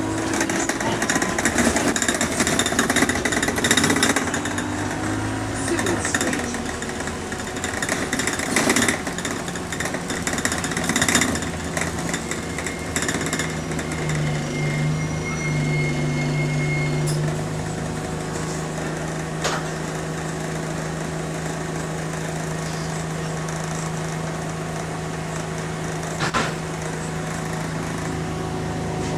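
Interior noise of a bus on the move: a steady engine drone under heavy rattling and clattering from the bodywork, busiest in the first half. Partway through, the drone rises in pitch alongside a brief high whistle, and there are a couple of sharp knocks later on.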